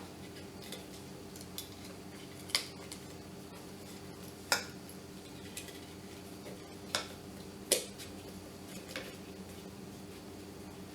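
Travel kettle parts knocking and clicking as the bottom cover with handle is set onto the kettle body: four sharp knocks spread over several seconds, with a few fainter taps, over a faint steady hum.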